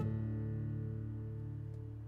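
Martin D-40 FMG dreadnought acoustic guitar, a strummed chord ringing out and slowly dying away.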